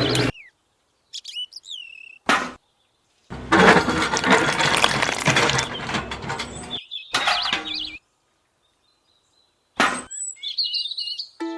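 Short bird chirps that rise and fall, broken up by bursts of noise, the longest about three seconds in the middle, with abrupt dead-silent gaps between the pieces.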